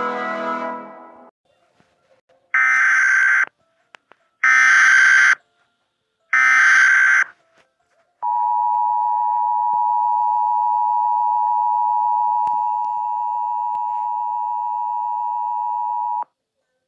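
Emergency Alert System tones: three screechy data bursts of about a second each, evenly spaced, then the steady two-tone attention signal held for about eight seconds, which cuts off suddenly. Music fades out in the first second.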